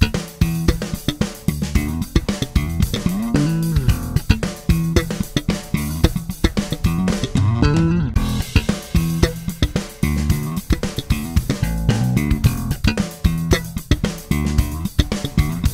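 Electric bass guitar played with the fingers in a continuous run of notes, over a drum-kit beat.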